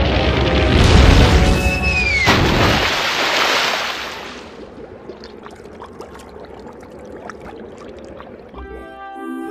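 Cartoon sound effects: a loud rushing whoosh with a high whistle falling in pitch about two seconds in, fading out after about four seconds. Quieter crackling and ticking follows, and a few notes of music come in near the end.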